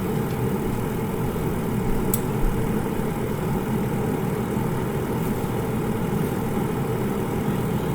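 Air fryer running: its fan gives a steady, even hum, with one faint click about two seconds in.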